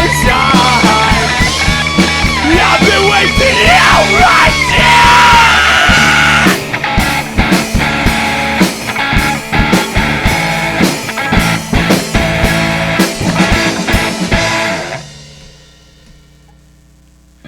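Live pop punk band, with electric guitars, bass and drum kit, playing the final section of a song with heavy drum hits. The band stops about fifteen seconds in, leaving a faint hum.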